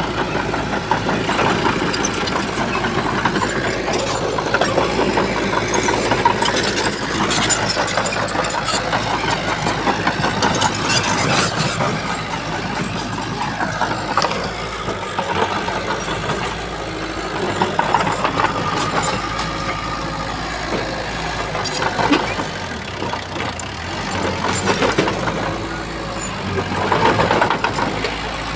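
Bulldozer diesel engine running steadily under work, swelling and easing every few seconds, with frequent metallic clanks and knocks.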